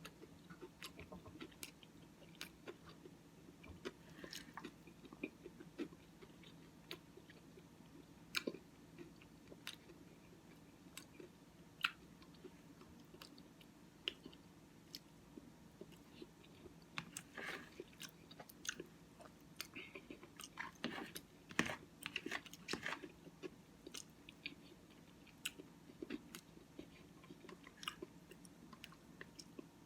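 Close-up chewing and mouth sounds of someone eating Cookie Crisp cereal in oatmeal, with many small, irregular clicks and smacks over a faint steady low hum.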